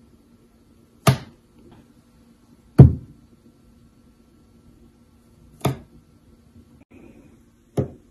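Four sharp knocks, unevenly spaced a few seconds apart, each dying away quickly.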